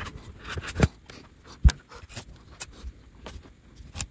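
Thin steel solder-paste stencil being handled and lifted off a PCB, with scattered crackles and clicks and one sharp knock a little under halfway through; masking tape is pulled up near the end.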